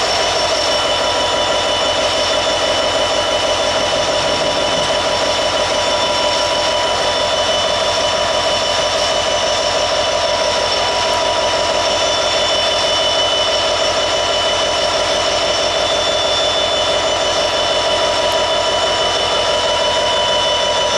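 Norfolk Southern SD70ACU diesel-electric locomotive, with an EMD 710 V16 two-stroke engine, running loud and steady while standing close by. Its engine drones under several steady high whining tones.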